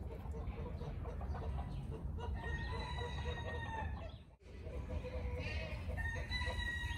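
A rooster crowing twice, each crow a long held call that falls slightly at the end, with chickens clucking throughout.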